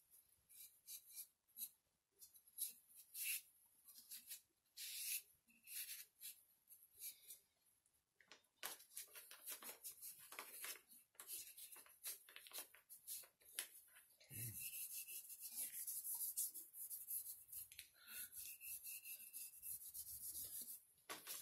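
Stain-soaked cloth rubbing over a wooden rifle handguard in faint short wiping strokes, turning into a longer continuous rub about two-thirds of the way in.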